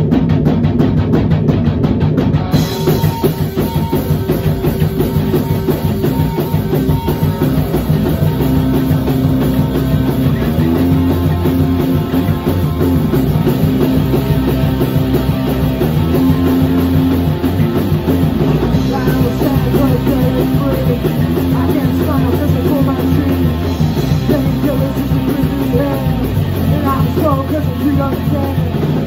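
A rock band playing a song live in a rehearsal room: guitar with a full drum kit, the drums and cymbals coming in about two and a half seconds in and carrying on at full volume.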